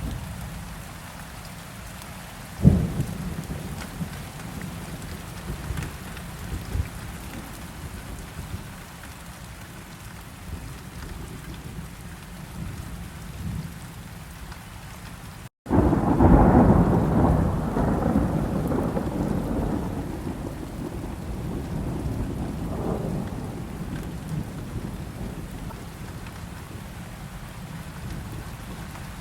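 Steady rain with thunder: a sharp crack about three seconds in. About halfway through, after a momentary break in the sound, a loud rolling rumble of thunder swells and slowly fades.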